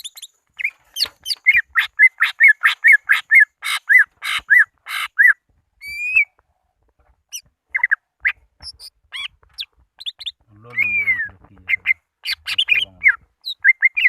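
Greater green leafbird (cucak ijo) calling to challenge a rival: a fast run of short chirping notes, about three a second, then sparser varied whistles, sliding notes and squawks, with one harsher, buzzier call about two-thirds of the way through.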